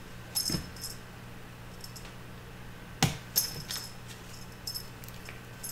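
Cat toy jingling in short bursts as kittens bat at it, three times, with a sharp knock about three seconds in, over a steady low hum.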